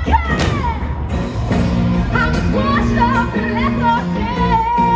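Live rock band playing: a steady drum and bass beat with a sung melody over it.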